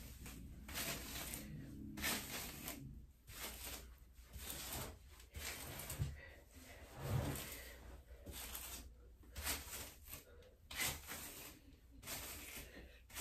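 A comb pulled through long hair again and again: a string of soft rustling, scraping strokes, one or two a second.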